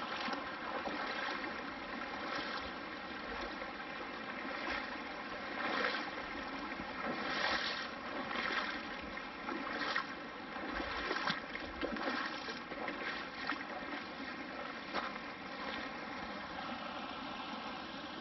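Shallow creek running over a rocky bed: a steady rush of water with brief louder gurgles now and then.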